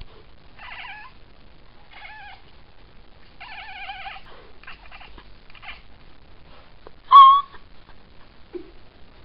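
Domestic cat making a really strange warbling, chattering call while watching birds, the prey-focused chatter cats make at birds. It comes in several short bouts, with one much louder call about seven seconds in.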